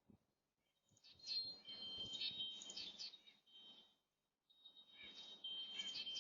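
Birds chirping in two bursts of about three seconds each, with high, piercing notes.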